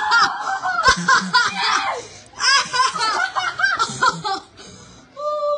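Kids laughing hard in several choppy bursts, dying down near the end.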